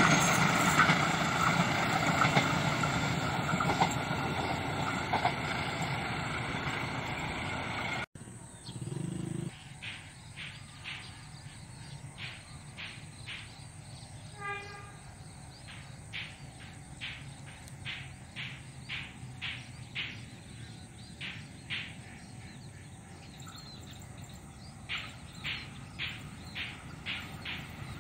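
A train rolling past, its rumble slowly fading, cut off abruptly about eight seconds in. After that the background is quieter, with a string of short high ticks about once a second and one brief pitched note near the middle.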